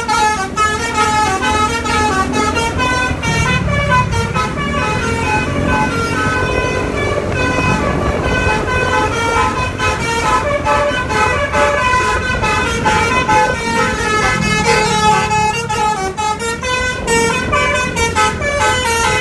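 Basuri telolet bus horn, a multi-tone musical horn, playing a long, fast melody of short notes that step up and down in pitch. The bus engine rumbles underneath.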